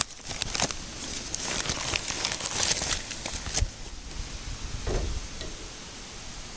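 Newspaper and magazine packing paper rustling and crinkling as it is pulled out of a cardboard box. A dense run of crackles for about three and a half seconds, then quieter, with one softer rustle near five seconds in.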